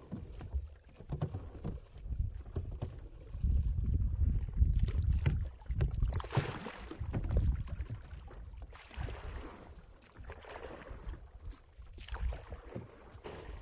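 Wind buffeting the microphone while a small boat moves through floodwater, with two longer washes of water hiss near the middle.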